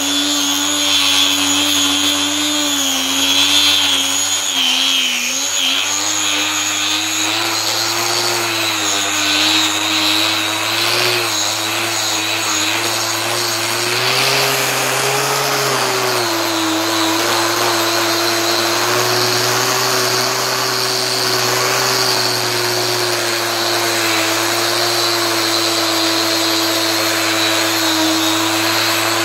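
Handheld electric power tool running continuously as it sands and cleans a metal surface. Its motor whine wavers with the load, dipping around five seconds in and rising briefly around fifteen seconds, over a steady rasp of abrasive on metal.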